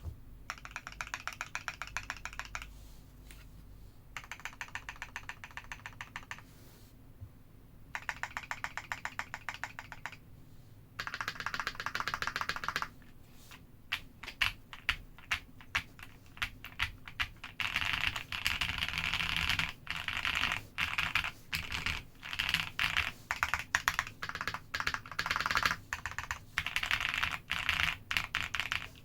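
Keychron Q2 mechanical keyboard with lubed LEOBOG Grey switches and GMK-style clone keycaps being typed on. Three short runs of rapid, even keystrokes come first, then continuous fast typing with scattered louder single strokes.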